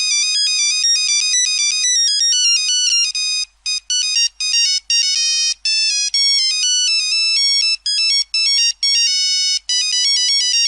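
Nokia mobile phone ringtone: a fast electronic melody of high, beeping synth notes with no bass, playing in quick runs that break into short phrases with brief gaps through the middle before running on again near the end.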